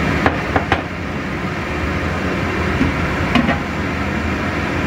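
Steady rushing of water boiling under the rack of a wok steamer, with a few light clicks under a second in and a glass wok lid knocking onto the rim about three and a half seconds in.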